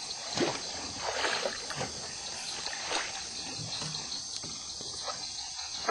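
Water sloshing with soft, irregular splashes, over a steady high hiss.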